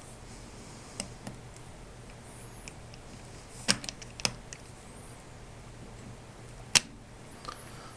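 Scattered small clicks and taps of a screwdriver tip working factory screws out of a lever-action rifle's receiver. There is a pair of sharper clicks in the middle, and the loudest click comes about a second before the end.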